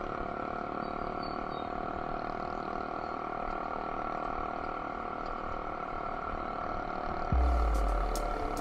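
Motorcycle engine running steadily at cruising speed, heard from a handlebar-mounted camera, with a constant hum and road noise. Near the end a sudden deep rumble comes in and fades.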